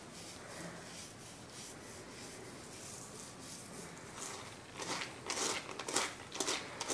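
Fingers sprinkling salt over wet pumpkin seeds in a mesh strainer, a faint rustle, then from about five seconds in a hand stirring the seeds against the mesh in a run of short rustling, rubbing strokes.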